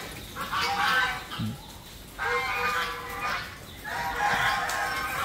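A large flock of young Muscovy ducks calling, many voices overlapping, in three swells about a second long each.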